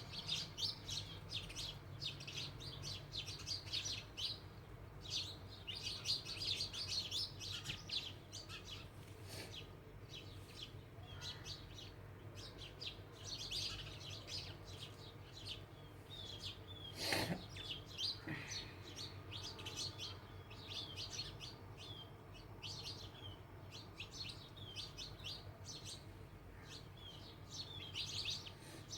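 A group of house sparrows chirping continuously, with many short, overlapping chirps coming in busy clusters. One louder sound about seventeen seconds in stands out above the chirping.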